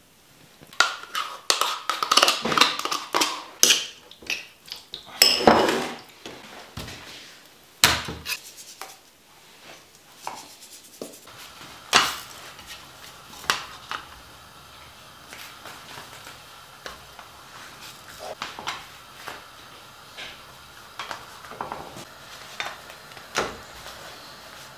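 Kitchen clatter of dishes and utensils: a quick run of clinks, knocks and a scrape in the first several seconds, then scattered lighter knocks of frying pans handled on a gas stove over a faint steady hiss.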